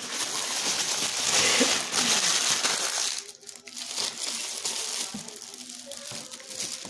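Gift wrapping paper crinkling and rustling as it is handled, loudest over the first three seconds and quieter after.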